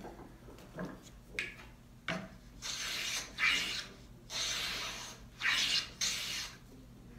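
Hand plane shaving the edge of a walnut panel: a few light knocks as the plane is handled, then about five quick cutting strokes in a row, starting about two and a half seconds in.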